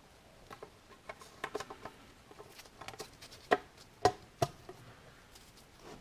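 Turbochargers being handled and set down on a hard surface: scattered light clicks and taps, then three sharp knocks about halfway through.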